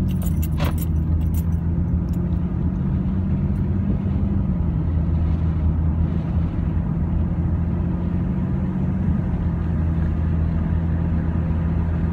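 A car engine and road noise heard from inside the moving car, a steady drone whose pitch shifts slightly about four and a half seconds in and again around nine seconds. A few light jingling clicks come in the first second or so.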